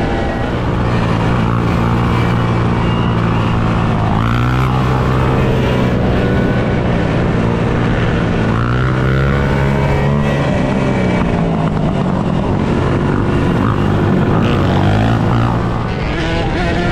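Dirt bike and ATV engines running at speed, their pitch rising and falling as they rev, about four seconds in and again around eight to ten seconds in.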